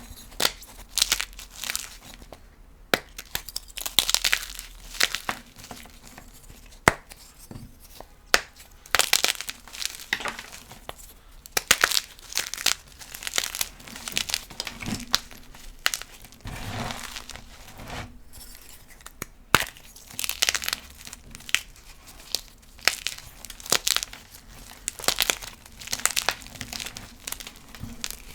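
Blocks of gym chalk being crushed and crumbled: irregular crunches with sharp cracks and powdery crumbling in between.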